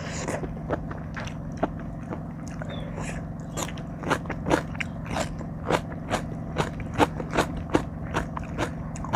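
Close-miked chewing of a spicy Thai seafood salad: wet, crunchy bites. They are sparse at first, then come about two to three a second from a few seconds in, over a steady low hum.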